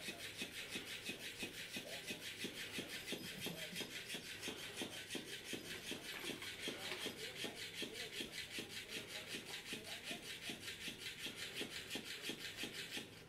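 Electric flopping-fish cat toy running on carpet, its motor-driven body flapping in a steady rasping rhythm of about four beats a second. It stops suddenly near the end.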